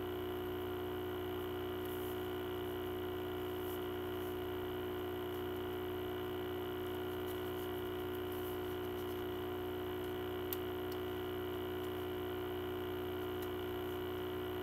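Steady electrical mains hum with several fixed tones, and faint scattered clicks and ticks as the plastic packaging of a CD box set is handled. One sharper click comes about ten seconds in.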